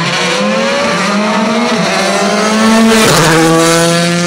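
Rally car at full throttle on a special stage: the engine note climbs as it approaches, then it passes close by about three seconds in and the pitch drops as it goes away.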